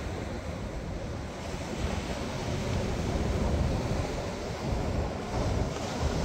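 Ocean surf breaking and washing up a sandy beach in a steady wash of noise, with wind buffeting the microphone as a low, gusty rumble.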